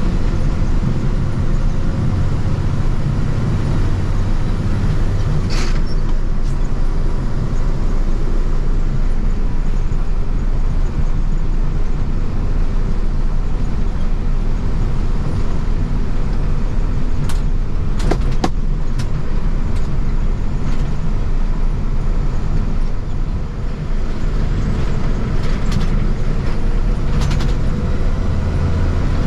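Steady road noise of the International truck driving with its trailer in tow: a continuous low rumble, broken by a few sharp clicks.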